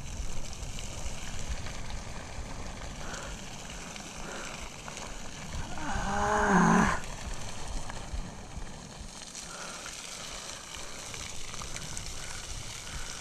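A man's drawn-out strained groan, about a second long, midway through, as he stretches out to reach a snagged fishing line; a steady background hiss runs under it.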